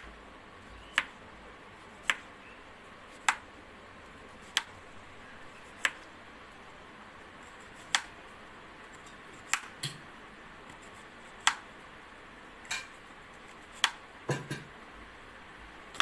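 Knife slicing a peeled ambarella (amra) into rounds, the blade clicking sharply against the cutting board with each cut, about one click a second.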